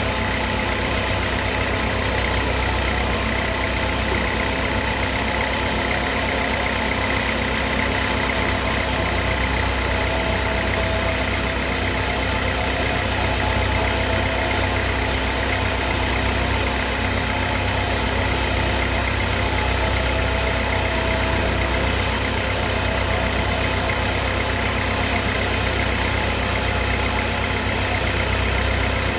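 Sawmill machinery running steadily, with an even, unchanging engine-like drone.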